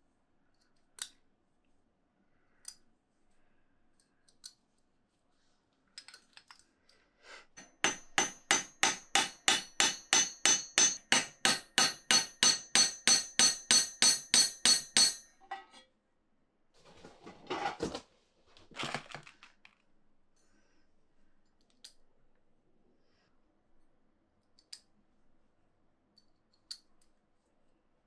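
Hammer striking a punch to set copper rivets in a copper bracket on a steel anvil stake: a steady run of ringing metallic blows, about three a second, starting some eight seconds in and lasting about seven seconds. Before it, a few light clinks of the small copper rivets on the steel; after it, a brief scraping rustle.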